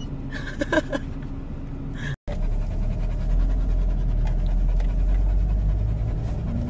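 A dog panting inside a moving car, over a steady low rumble from the road. The sound drops out briefly about two seconds in.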